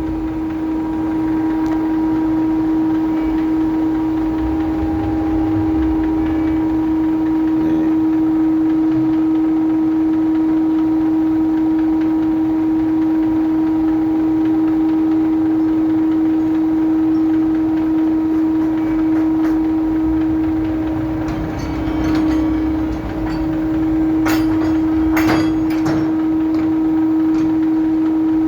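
Loud, steady machinery hum holding one strong pitch, from the loading machinery working a container ship. It wavers briefly, and a few sharp metallic knocks come near the end.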